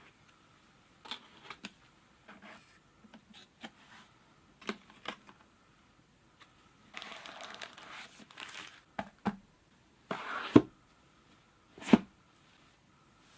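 Hands handling and opening phone packaging: scattered light clicks and taps, a couple of seconds of rustling and crinkling about seven seconds in, and two sharp knocks near the end, about a second and a half apart.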